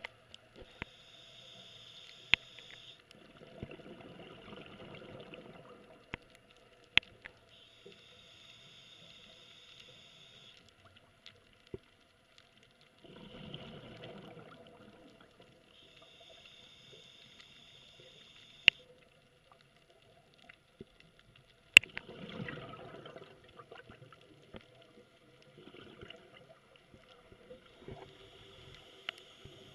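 Scuba diver breathing through a regulator underwater: a hiss on each inhale, then a low bubbling rumble as the breath is let out, repeating every several seconds. A few sharp clicks come in between.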